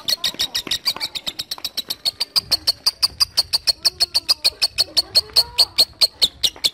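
A lovebird's long 'ngekek' trill: a fast, even string of sharp, high chattering chips, about eight a second, kept up without a break and cutting off suddenly at the end.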